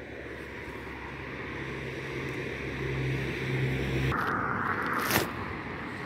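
Vehicle engine hum and road rush with wind on the microphone. The hum grows louder and drops away about four seconds in, giving way to a brief hiss and one sharp click.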